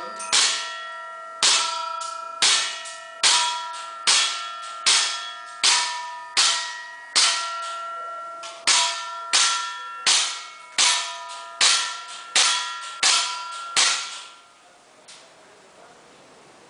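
Airsoft pellets striking a metal barbecue shovel hung as a target, each hit giving a sharp clang that rings on like a bell and fades. About seventeen hits come in a steady string, one every second or less, and stop about fourteen seconds in.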